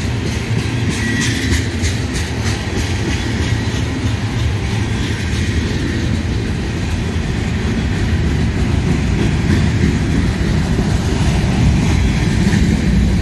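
A train rolling past: a steady, heavy rumble, with a run of wheel clicks over the rail in the first couple of seconds.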